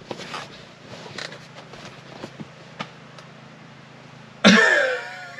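Light clicks and rustles as a car seat cushion is handled and pressed back into place, over a low steady hum. About four and a half seconds in, a man lets out one loud grunt that falls in pitch and fades over about a second.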